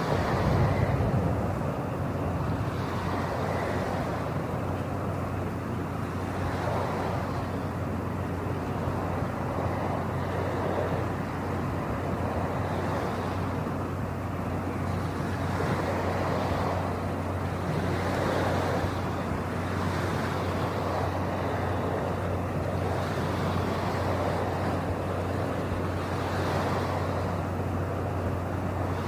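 Steady low machinery hum under a rushing noise that swells and fades every two to three seconds.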